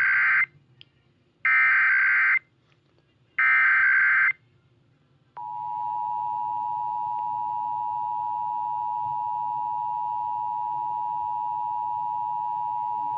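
Emergency Alert System tones for a required monthly test. First come three bursts of the screeching digital SAME header data, about a second each, with short gaps between them. About a second after the last burst, the steady two-tone attention signal begins and holds.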